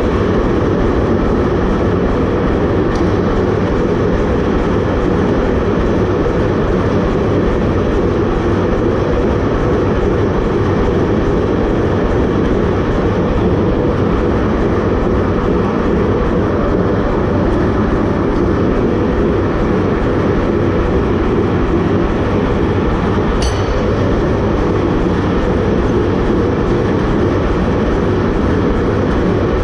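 Chambersburg 500 self-contained power hammer running steadily, a loud continuous run of closely spaced blows as the damascus billet is worked.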